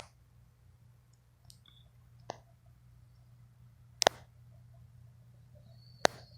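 A few sharp, isolated clicks or pops at irregular intervals of one to two seconds, the loudest a double click about four seconds in, over a steady low hum. These are the unexplained noises heard in a quiet bedroom.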